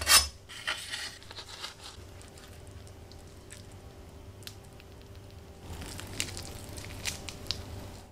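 Knife cutting through a grilled, toasted tortilla wrap, with a sharp crunch at the start and crackling over the next second or so. Later the wrap is pulled apart by hand, giving soft tearing and crackling of the tortilla with a few sharp crackles.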